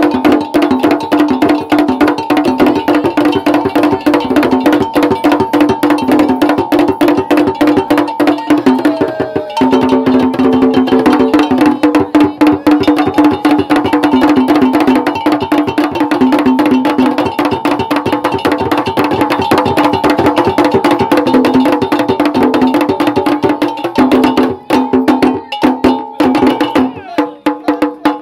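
Traditional drum and percussion music: fast, dense strikes over steady held notes, dipping briefly about ten seconds in and again near the end.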